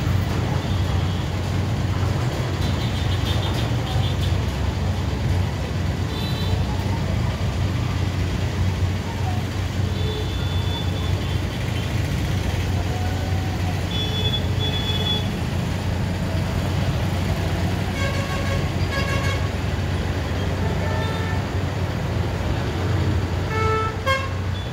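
Busy road traffic: a steady rumble of passing engines, with short vehicle horn toots every few seconds, several of them doubled near the middle and the end.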